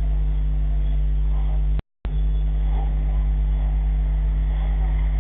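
Steady low hum of a running engine, broken by a brief drop to silence a little under two seconds in.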